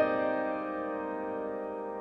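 Solo piano music: a final chord struck at the start rings on and slowly fades.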